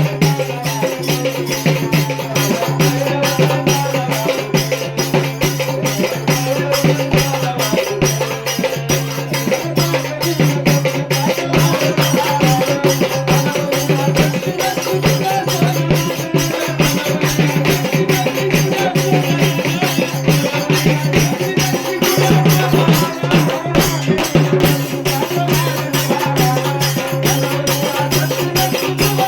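Marathi devotional folk song music: fast, steady drum and rattling percussion over a sustained low drone and a melody line.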